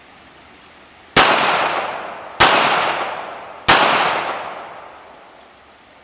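Three pistol shots from a Smith & Wesson Bodyguard .380 pocket pistol, a little over a second apart, each followed by a long echo that fades away.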